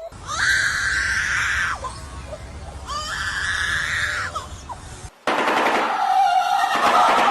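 A bird screaming twice, each scream about a second and a half long, then from about five seconds in a fast, harsh rattling call.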